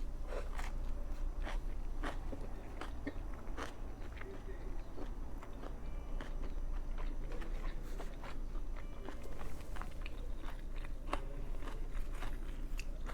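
A person chewing and biting into a veggie patty sandwich, with many small crunches and wet mouth clicks coming irregularly throughout.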